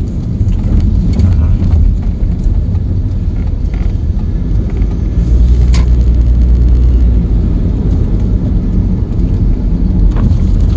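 Steady low rumble of road and engine noise inside a moving car's cabin, swelling louder for a couple of seconds around the middle, with a faint click about six seconds in.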